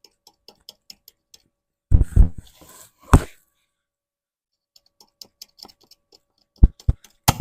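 Faint scattered ticks, then sharp knocks in short clusters about two and three seconds in and again near the end, with a brief scratchy scrape between the first knocks.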